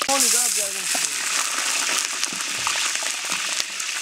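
Meat frying in hot oil in a kazan, a steady sizzle with scattered small pops. A short voice sounds in the first second.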